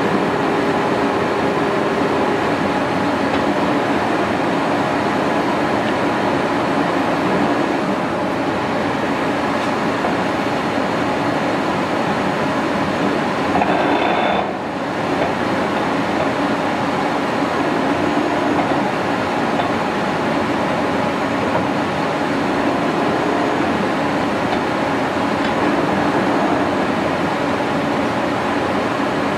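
Poreba TPK90A/3M heavy-duty engine lathe running under power with a steady mechanical drone and faint steady tones. The sound dips briefly about halfway through.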